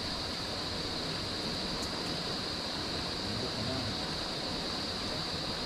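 Steady rushing of flowing river water, with a constant high hiss over it.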